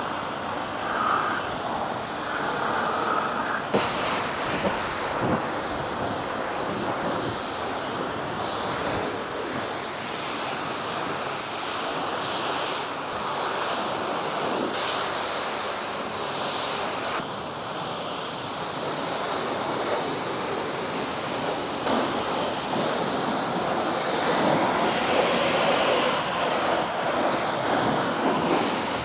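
Pressure washer jet spraying water onto the car, a loud, steady hiss that swells and fades as the spray moves across the surface.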